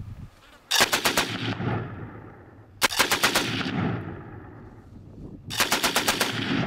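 Machine gun firing three short bursts of automatic fire about two seconds apart, each a rapid string of about seven shots with a trailing echo.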